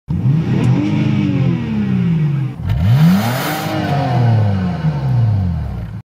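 Car engine revved twice while parked, its pitch rising and then falling back each time.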